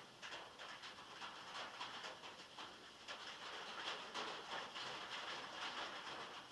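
Heavy rain drumming on a metal roof: a dense, continuous patter of drops that comes in slightly heavier waves.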